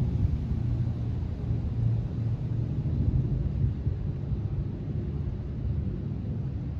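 Wind buffeting the microphone outdoors: a low rumble that swells and eases with the gusts.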